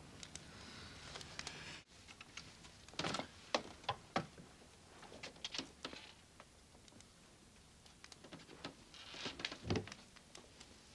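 Faint scattered knocks, taps and rustles of a person moving stealthily about a room, with a brief dropout about two seconds in.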